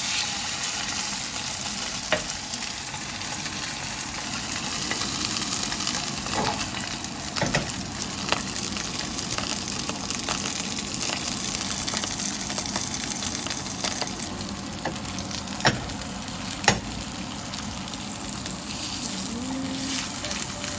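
Salmon fillet marinated in XO sauce sizzling steadily in hot oil in a frying pan. A few sharp clicks or taps sound over it, two of them louder near the end.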